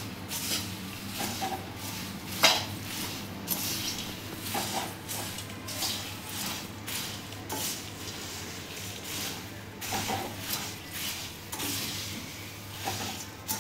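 Metal spatula stirring and tossing puffed rice in an aluminium kadai: repeated irregular scrapes of metal against the pan with the dry rustle of the puffed rice, one stronger scrape about two and a half seconds in.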